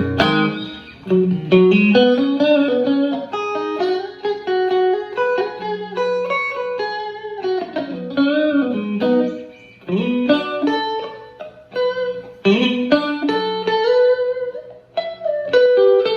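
Fender Stratocaster electric guitar played loud through a Fender Blues Junior tube amp: single-note lead lines with several string bends and notes left ringing.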